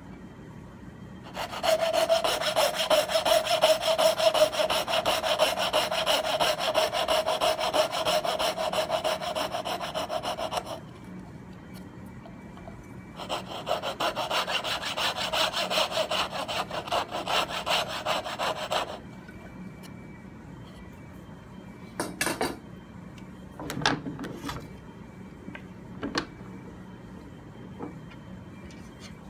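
Coping saw cutting out the waste between dovetail kerfs in a hardwood board, with fast short strokes. There are two runs of sawing, about nine seconds and then about six, with a pause between them. A few short knocks of wood follow near the end.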